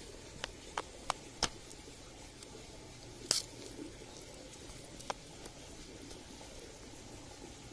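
Small ripe Passiflora foetida fruits being split open by hand, with the wet seed pulp dropped onto a banana leaf. A handful of short sharp clicks and soft wet squishes: four in the first second and a half, the loudest a little past three seconds in, and one more near five seconds.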